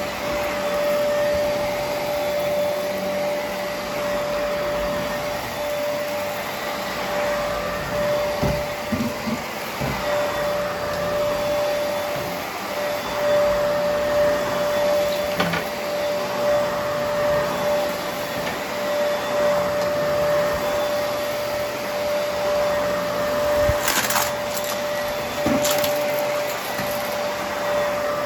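Vacuum cleaner running with its brushroll on: a steady motor whine over airflow noise, with a few knocks partway through and sharp crackles near the end as debris is picked up.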